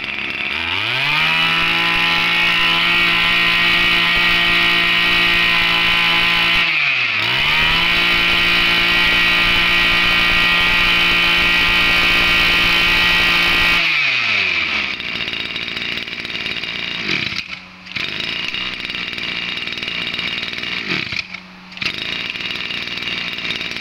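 Tanaka 23cc two-stroke brush cutter engine revving up to a steady high-pitched full throttle. It is let off and opened up again about seven seconds in, then drops back to idle about halfway through. Near the end it cuts out briefly twice and picks up again.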